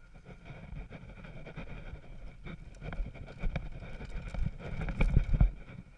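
Wind rushing over the camera's microphone and the rumble and knocks of a ride down a rough dirt singletrack, with a cluster of heavier thumps about five seconds in.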